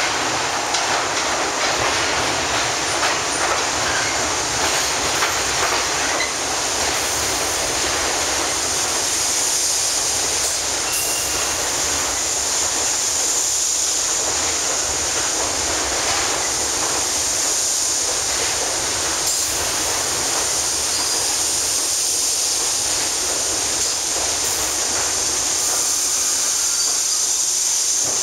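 An R62A subway train on the (1) line pulling into its terminal station and rolling slowly along the platform to stop: a steady rumble and rattle of steel wheels on the rails, slightly louder as it first comes in.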